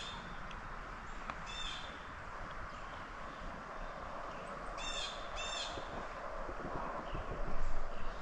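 A bird calling outdoors in short, high, repeated calls: one near the start, another about a second and a half in, then two in quick succession about five seconds in. The calls sit over a steady background hiss.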